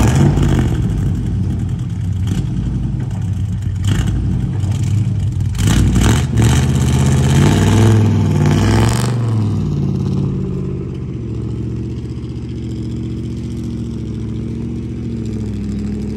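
Pickup truck engine revving hard under load, its pitch rising and falling as it strains to tow a heavy truck on a strap, with knocks and rattles along the way. After about ten seconds it settles to a steadier pull.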